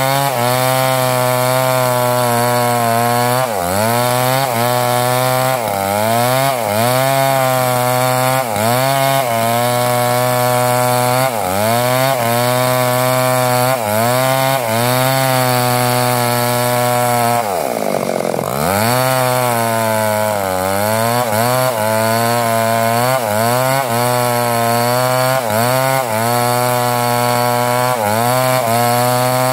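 Two-stroke chainsaw at full throttle ripping a mango log lengthwise into boards. Its pitch sags every second or two as the chain loads up in the cut and then recovers, with one deep drop a little past halfway.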